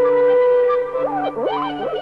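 Music score: a French horn holds one long steady note, then about a second in, quick sliding, wavering woodwind notes take over.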